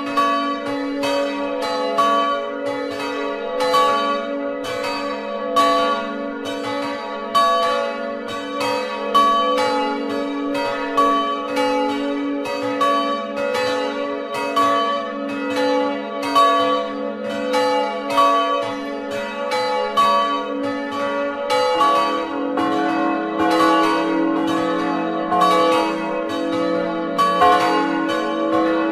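Several swinging church bells in a wooden belfry, heard up close from inside the tower, ringing together in a continuous peal of overlapping strikes with long ringing tones. About two-thirds of the way through, a lower bell tone comes forward in the mix.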